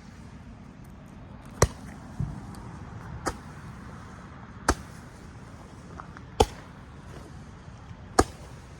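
A lit consumer firework going off in a series of sharp pops, five of them about every one and a half to two seconds, with a weaker thump about two seconds in.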